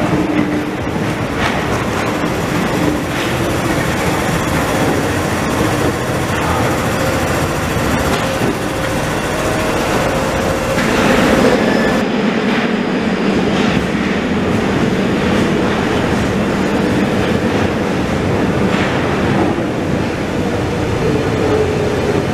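Paris Métro trains running through a station: steady wheel-on-rail rumble with the whine of the traction motors. About eleven seconds in the sound changes abruptly, and near the end an arriving train's motor whine falls in pitch as it slows into the platform.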